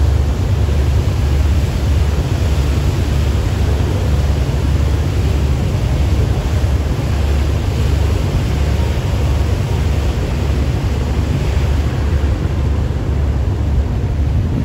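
Steady wind rumble on the microphone aboard a moving river tour boat, with the boat's engine and water noise underneath.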